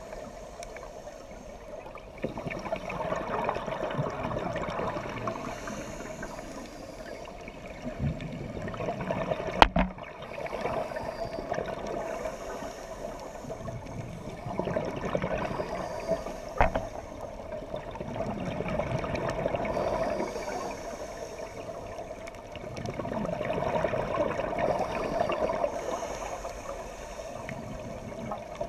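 Scuba regulator exhaust bubbles gurgling underwater, swelling and fading every few seconds with the diver's breaths. Two sharp knocks stand out, the louder about ten seconds in and another about seven seconds later.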